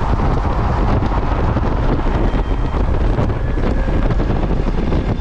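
Steady wind noise on the microphone over the engine and road noise of a Honda GL1500 Gold Wing motorcycle cruising at highway speed, its flat-six engine running evenly.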